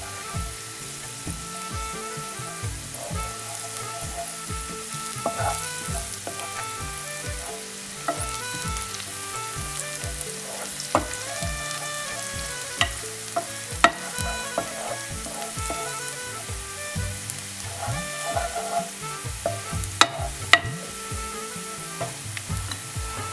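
Ghee sizzling in a frying pan while a wooden spoon stirs ground spices, garlic, ginger and green chili through it, with a few sharp clicks along the way. Soft background music with a steady beat runs underneath.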